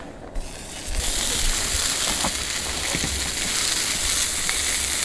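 Sausages sizzling in a hot frying pan on a camp stove. The sizzle starts about half a second in, as they go into the pan, and is full by about a second in, then runs on steadily.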